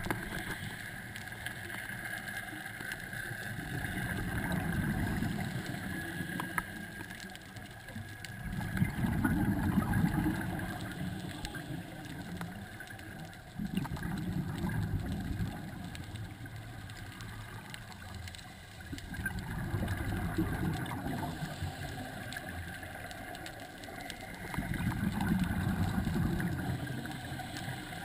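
Scuba diver breathing through a regulator underwater: exhaled bubbles rumble and gurgle in swells about every five seconds, over a steady faint hum.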